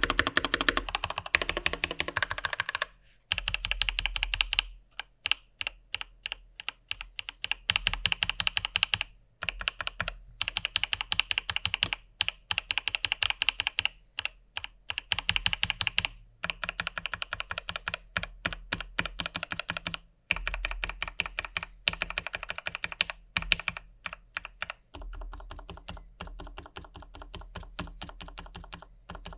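Fast typing on an IQUNIX L80 mechanical keyboard with stock TTC ACE switches: dense runs of keystroke clacks broken by a few short pauses, a little softer near the end.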